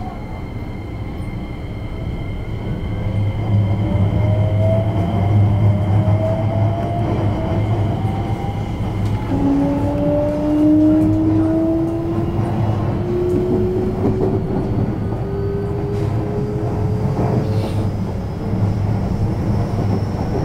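JR West 321 series electric train accelerating from a stop, heard from inside the carriage: the traction motors' whines rise steadily in pitch, several one after another, over a steady low running rumble.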